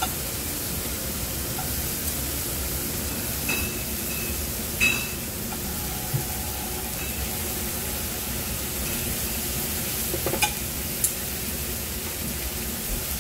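Raw intestine pieces sizzling steadily on a hot tabletop grill pan at a Korean barbecue, with a few sharp metal clinks from the tongs and grill fittings.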